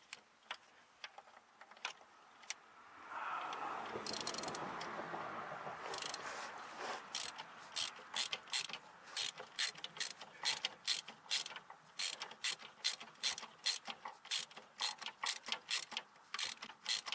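Socket ratchet clicking as the starter mounting bolt is worked loose, in a steady run of sharp clicks about three a second through the second half. A few seconds of scraping noise come before the clicking settles in.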